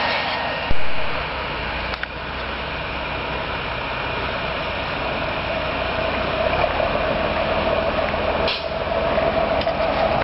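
Fire engines running at a fire scene: a steady noisy rumble with a droning whine that grows louder in the second half. A sharp thump under a second in.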